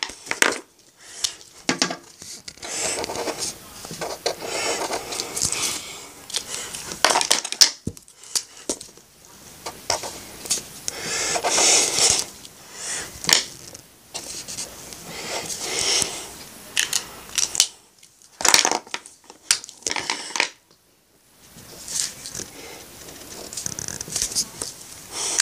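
Marker strokes scratching on paper close to the microphone, in short irregular bursts, mixed with clicks and knocks from handling the marker and paper.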